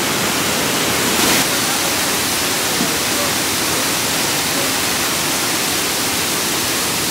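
Steady rushing of water, an even hiss that swells briefly about a second in.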